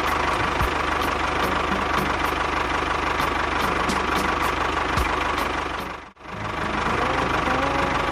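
A small engine running steadily at idle, with faint regular ticking. It cuts out abruptly about six seconds in and at once resumes.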